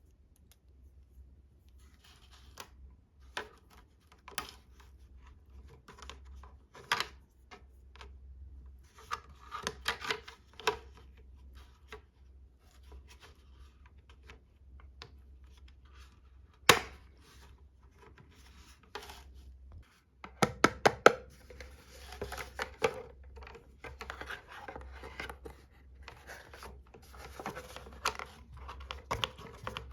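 Toy unboxing handling sounds: scattered sharp clicks and taps with rustling and scraping of packaging. The loudest click comes about 17 seconds in, a quick run of clicks follows a few seconds later, and the handling gets busier near the end.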